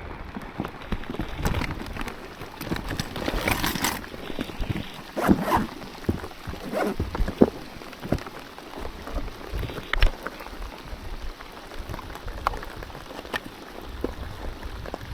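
Heavy rain pattering steadily, with many scattered sharp taps and knocks close to the microphone.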